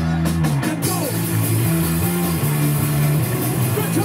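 Live rock band playing: electric guitars, bass and drum kit, with sustained low guitar and bass notes. About a second in, the full kit with cymbals comes in.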